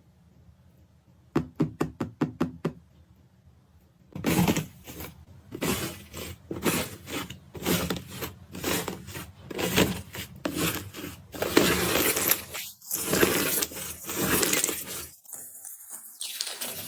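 Iceberg slime crunching and crackling as its dried, crispy crust breaks up, in dense, irregular bursts that start about four seconds in. Before that, a quick run of about eight sharp clicks.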